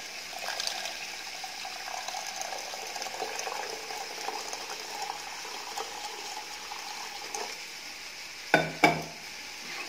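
Water poured in a steady stream from a jug into a pot of sautéed rasam paste, splashing into the hot mixture and sizzling; this is the water added to the fried rasam base. Two sharp clinks come about eight and a half seconds in.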